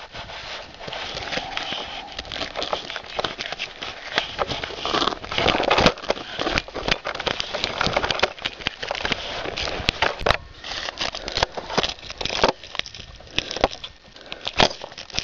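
Someone climbing a tree: irregular rustling, scraping and crackling against the trunk and bark, broken by many sharp knocks and clicks.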